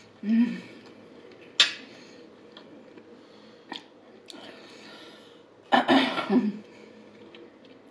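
A woman eating a salt and pepper chicken wing: a short hum just after the start, a sharp click and a few small mouth and handling clicks, then a loud throat-clearing cough about six seconds in.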